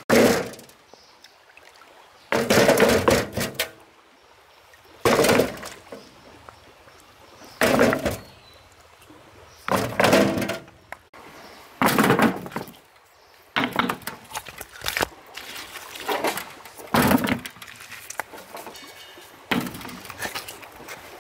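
A series of heavy thuds, about one every two seconds, each dying away within a second; the first few are the loudest, and the later ones come a little faster and softer.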